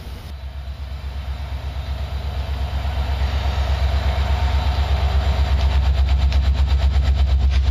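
Alaska Railroad diesel-electric locomotive pulling out, its deep engine rumble growing steadily louder as it approaches, with a fast, even throb in the second half.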